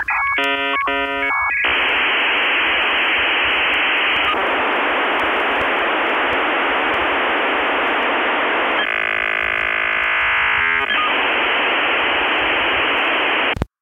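Dial-up modem handshake: a quick run of warbling beeps, then a steady hiss of static. Near ten seconds the hiss gives way to a buzzy chord of many tones for about two seconds, then the hiss returns and cuts off suddenly near the end.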